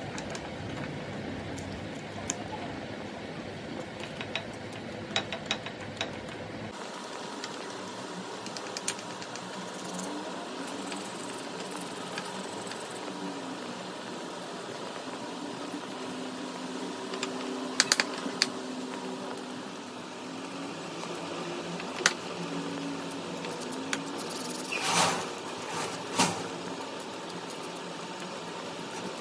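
Thin metal blade scraping rust scale off a corroded steel steering tie rod end held in a vise: intermittent scrapes and sharp clicks, loudest a few times in the second half, over a steady workshop hum.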